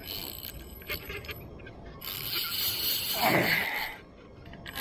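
Spinning reel clicking in quick, uneven ticks for the first couple of seconds, then a louder rushing noise for about two seconds.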